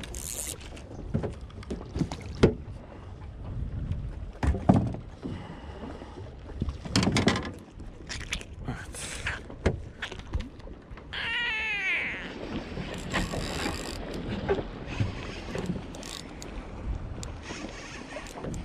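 Scattered knocks and clatter on board a small fishing boat, the two loudest about two and a half and nearly five seconds in. About eleven seconds in, a cat meows once with a long, wavering cry.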